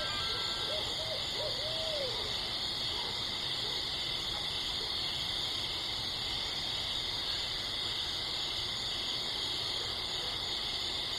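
An owl hooting: a short run of about four rising-and-falling hoots in the first two seconds, the last one longer. A steady high-pitched hiss runs underneath.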